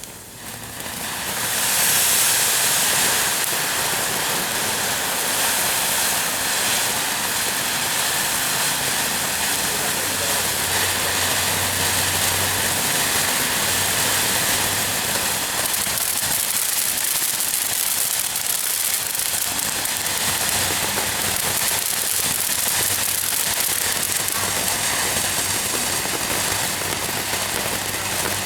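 Ground firework fountain spraying sparks with a steady, loud hiss. It swells up just after the start and holds evenly throughout.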